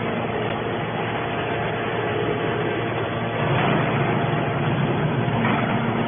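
Hydraulic scrap-metal baler running: a steady mechanical noise from its hydraulic power unit and press, swelling slightly a little after halfway.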